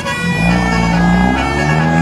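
Telolet basuri bus horn playing a tune: loud held notes with a reedy, pipe-like tone that step to new pitches a few times.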